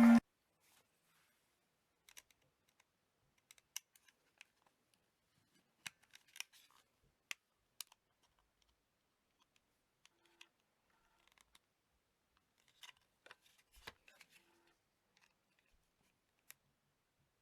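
A motorbike anti-theft alarm's siren cuts off right at the start, followed by faint, scattered clicks and ticks, a dozen or so at irregular intervals, with near quiet between them.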